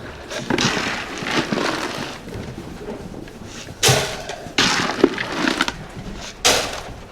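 Dry animal feed being scooped and poured in several short rattling pours.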